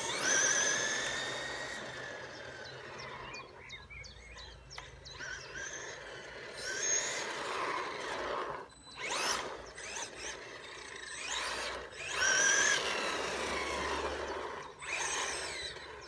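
Maverick Strada RX RC rally car driving in short bursts. Its electric motor whine rises and falls in pitch with the throttle, over tyre noise on the ground. The drivetrain has its bearings freshly cleaned and greased, and is running smoothly with no grit crunch.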